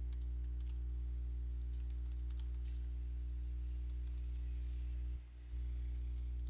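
Computer keyboard typing: scattered light key clicks over a steady low electrical hum. The hum briefly drops away about five seconds in.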